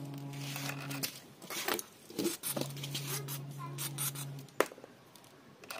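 Aerosol lubricant can sprayed through its straw in short hissing bursts, among clicks and clinks of metal, with one sharp knock a little over halfway through. A steady low hum is heard during the first second and again through the middle.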